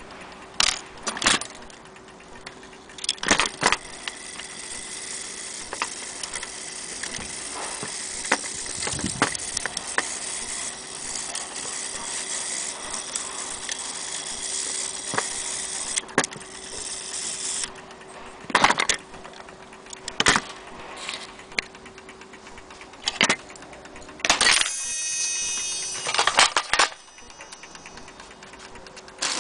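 Old brass clock movements and loose clock parts clinking and knocking against each other and the table as they are handled, in scattered single hits, with a longer metallic ringing clatter near the end. A faint steady hum runs underneath.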